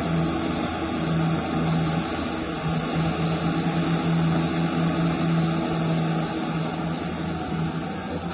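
Hydraulic pump of a radio-controlled CAT 336 scale-model excavator running with a steady hum that dips briefly now and then as the boom, arm and bucket are worked.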